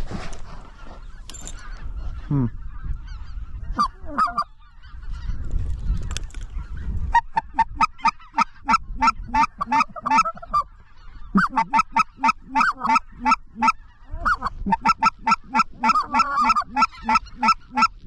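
Specklebelly (greater white-fronted goose) calling: loud, evenly spaced notes at about five a second in long runs from about seven seconds in, with a short break near the middle. Before that, wind rumbles on the microphone with only scattered calls.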